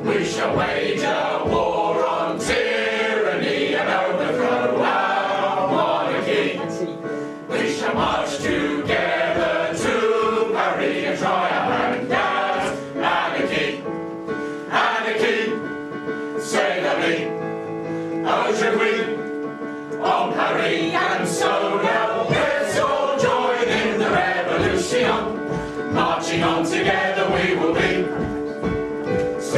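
A chorus of men's and women's voices singing a lively show song together over instrumental accompaniment, with sharp rhythmic strokes through it.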